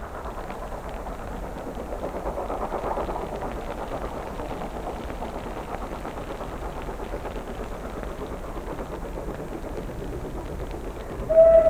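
Steady rumble of wind on the microphone. Near the end a steam locomotive's whistle sounds: one steady, high note that is much the loudest thing here.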